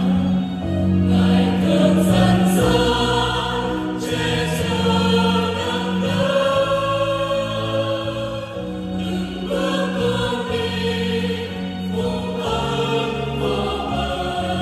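Mixed church choir singing a Vietnamese Catholic offertory hymn in held, sustained chords, accompanied by electronic keyboards with a steady low bass line.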